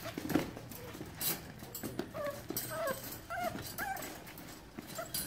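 Seven-week-old pit bull puppies whimpering in many short, high squeaks that rise and fall, most of them bunched in the second half, with scattered light clicks between them.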